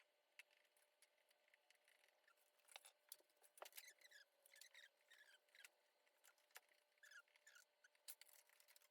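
Near silence: faint room tone with a few scattered faint clicks and soft high chirps.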